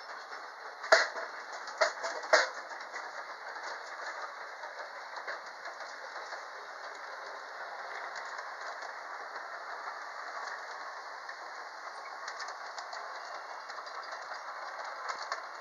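G-scale model trains running on track: the wheels and motors make a steady running noise. Three sharp clicks, the loudest sounds, come between about one and two and a half seconds in.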